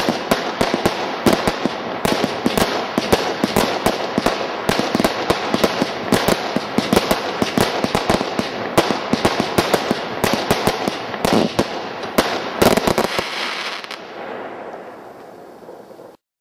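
Total Turmoil 256-shot single-ignition firework barrage cake firing rapid volleys of aerial bursts, several bangs a second. A last loud cluster comes about thirteen seconds in, then the sound fades away over the last few seconds as the cake finishes.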